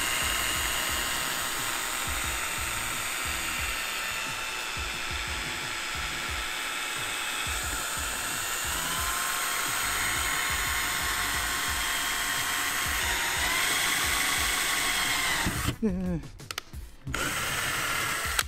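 Handheld power drill running under load as it bores holes into the top of a Mazda Miata's windshield frame. Its whine rises in pitch a couple of times, and near the end it winds down and stops and starts a few times.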